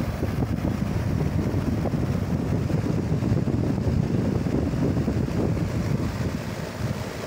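Wind buffeting the microphone: a low, uneven rumble that rises and falls without any steady tone.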